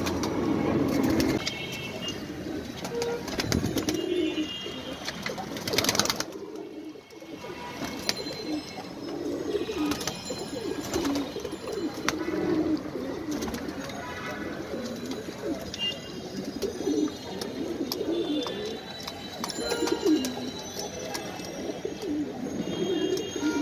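A flock of domestic pigeons cooing over and over while they feed on grain, with many small clicks of beaks pecking. There is a brief rush of noise about six seconds in.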